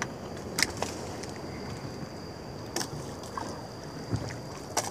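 Steady wind and water noise around a small outrigger fishing boat on a calm sea, with a thin steady high tone and three short sharp clicks, about half a second, nearly three and nearly five seconds in.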